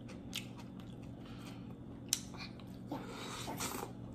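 Faint chewing of nacho-topped tortilla chips, with a sharp click about two seconds in, over a steady low hum.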